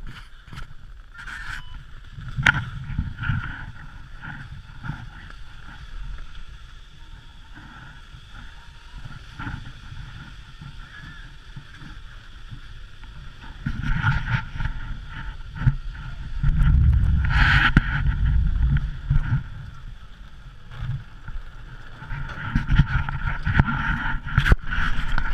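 A chairlift running through its terminal, heard on an action camera: a low rumble with wind buffeting the microphone, a faint steady whine from the lift machinery and a few sharp mechanical clacks. The rumble grows louder past the middle.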